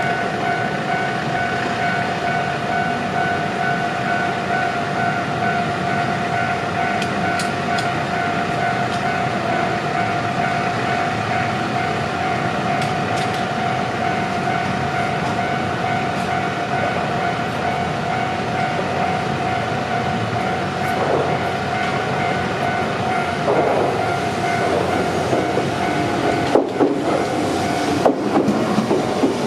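Japanese level-crossing warning bell ringing in a steady repeating clang as a Shizuoka Railway electric train approaches. In the last few seconds the bell stops and the train's wheels knock over the rail joints.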